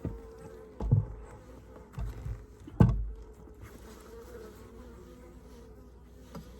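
Honeybees buzzing steadily around an open hive, with three wooden knocks as hive frames are shifted, the loudest about three seconds in.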